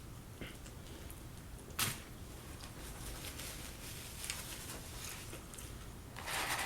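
Close-miked eating and handling sounds: scattered small clicks and mouth noises, with a sharp click about two seconds in and a louder rustle near the end.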